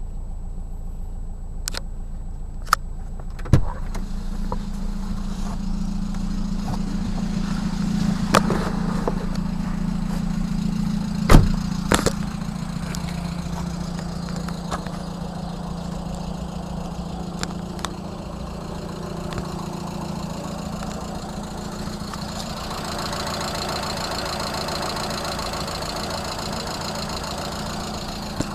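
Lada Kalina engine idling with a steady hum and an abnormal extra noise from under the hood that the owner cannot identify. A few sharp knocks stand out, the loudest about three and eleven seconds in, and near the end a rougher, higher rattle joins the hum for several seconds.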